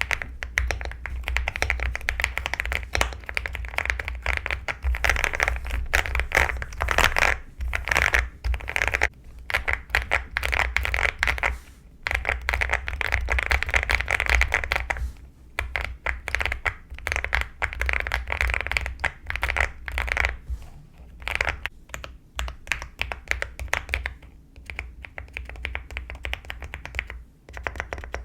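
Mechanical keyboard typed on in fast bursts of muffled, creamy keystroke clicks, with brief pauses between runs.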